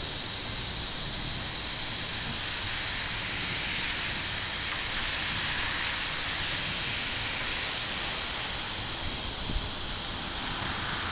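Steady, even hiss of thunderstorm ambience, with one brief low thump about nine and a half seconds in.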